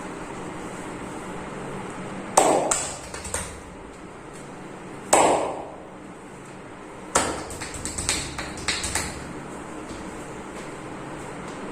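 Three sharp slaps about two and a half seconds apart, the first and the last each followed by a quick run of lighter taps, over a steady background hum.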